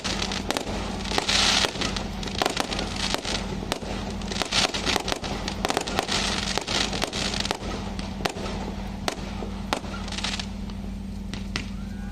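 Firecrackers and fireworks going off in rapid, irregular succession, a continuous crackle of many sharp pops.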